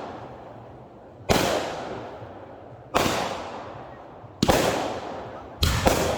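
Fireworks going off: four sharp bangs about a second and a half apart, each echoing away. Near the end several quicker bangs follow close together.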